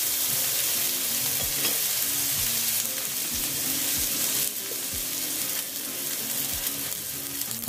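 Sliced shallots sizzling in hot oil in a wok, a steady frying hiss that eases slightly about halfway through.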